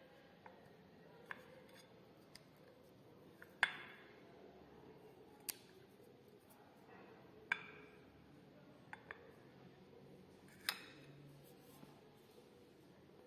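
Scattered sharp clicks and clinks of kitchen utensils against dishes, about half a dozen spread over the stretch, the louder ones with a brief ring.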